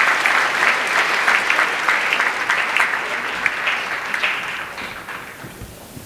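Audience applauding in an auditorium, dense clapping that gradually fades out over the last few seconds.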